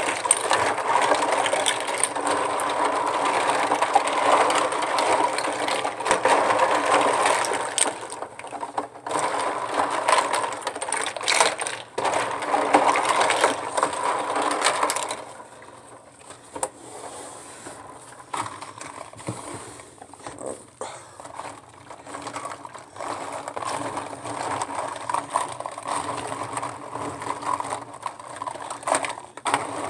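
Plastic lip gloss tubes and caps clattering and rattling against each other and the tub as a gloved hand swishes them through soapy water. The clatter is dense for the first half, then turns lighter and sparser about halfway through.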